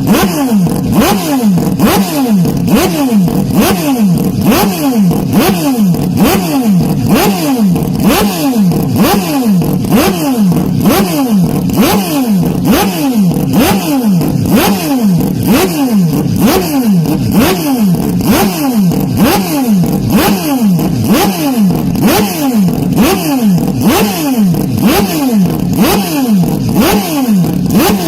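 Motocross bikes racing on track, their engines revving hard and dropping in quick repeated sweeps, about one or two a second, as the riders work the throttle and shift gears.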